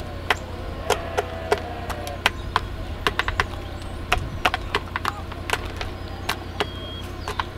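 A hen pecking feed pellets from a hand-held plastic scoop: quick, irregular taps of its beak on the plastic, a couple a second. A short cluck comes about a second in.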